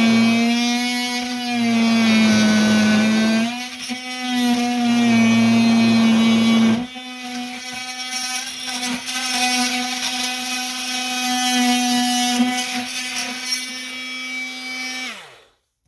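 Ferrex 20V cordless oscillating multi-tool running with a steady high-pitched buzz as its blade cuts into an old wooden fence post. About seven seconds in it gets quieter, and near the end the motor winds down in pitch and stops.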